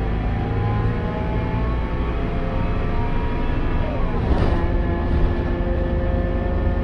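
Scania K280UB city bus heard from inside the cabin while under way: a low diesel drone with a whir of several whining tones rising steadily as the bus accelerates. About four seconds in the tones drop and settle lower, as at a shift of its ZF automatic gearbox. The whir is the odd whirring this bus is known for.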